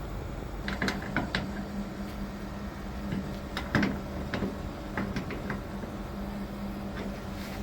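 Scattered clicks and knocks in small clusters, like parts of an appliance being handled and fitted, over a steady low hum.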